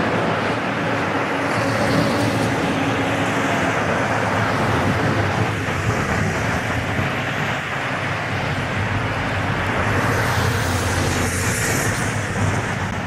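Boeing 777 jet engines heard from behind as the airliner lands after passing low overhead: a loud, steady noise. A hissing roar builds about ten seconds in while the aircraft rolls out on the runway.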